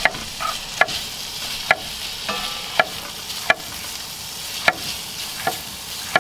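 Chopped bacon and hot link sizzling steadily in a pan over a propane camp burner, with sharp knife taps on a wooden cutting board about once a second as a jalapeño is sliced.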